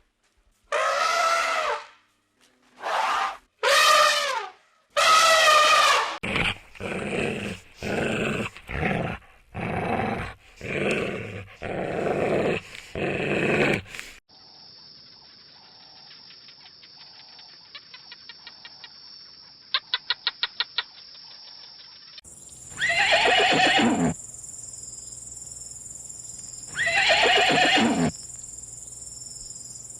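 Animal calls, in several separate clips. First a run of short pitched cries, then about eight calls at a steady rhythm, then a quiet stretch with faint clicking, and finally two long calls a few seconds apart.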